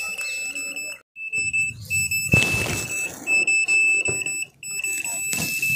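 Satellite finder meter's buzzer giving a steady high-pitched beep, chopped several times a second, as the meter registers the dish's satellite signal. It drops out briefly twice, and there is a short rustle about two and a half seconds in.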